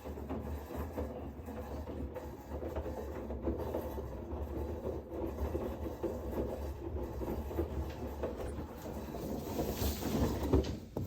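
Washing machine running with a steady low hum and an irregular rattling, clattering noise. It gets louder about ten seconds in.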